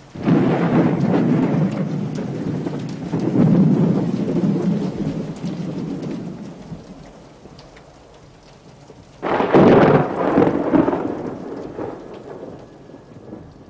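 Two rolls of thunder over steady rain. The first breaks suddenly and rumbles on for about six seconds; the second cracks in about nine seconds in and dies away over a few seconds.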